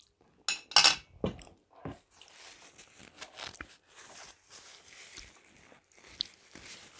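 A few light clinks and knocks, then a paper napkin rustling and crinkling as it is handled and wiped across the mouth.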